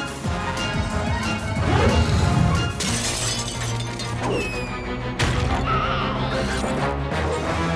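Cartoon background music with slapstick sound effects, including a couple of sudden crashes, about three and five seconds in.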